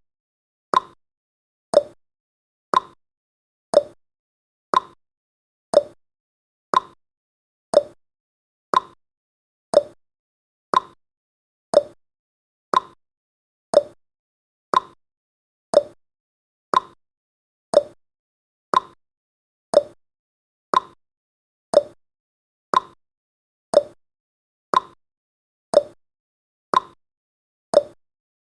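Countdown timer's clock-tick sound effect: a short, sharp tick once every second, steady and evenly spaced.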